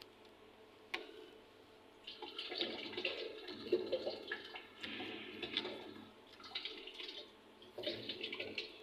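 Water running and splashing in uneven bursts with short breaks, after a single click about a second in.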